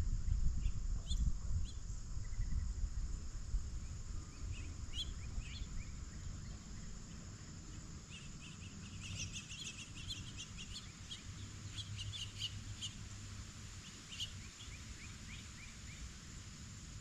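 Wild birds chirping in quick runs of short high notes, busiest from about nine seconds in, over a low rumble and a few soft bumps at the start.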